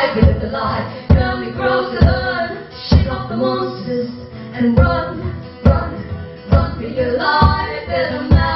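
Live band music: singing in harmony with no clear words over a steady beat, a strong low thump roughly once a second.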